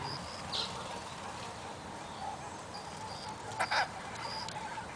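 Birds calling: short high chirps come and go, with one louder, fuller call about three and a half seconds in, over a steady outdoor hiss.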